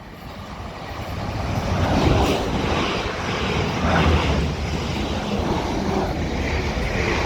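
Two coupled Class 444 electric multiple units approaching and running past on the main line, a rumble and rush of wheels on rail that builds over the first two seconds and then holds steady.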